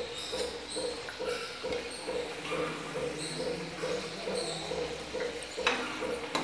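Samosas deep-frying in hot oil in an iron kadhai, a fine steady sizzle. The metal slotted spoon knocks once against the pan near the end. A short squeak repeats in the background about three times a second.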